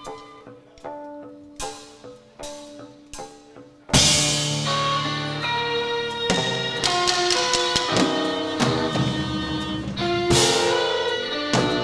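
Live band playing instrumental music. It opens quiet and sparse, with held notes and a few sharp drum hits, then about four seconds in the full band comes in loud with the drum kit.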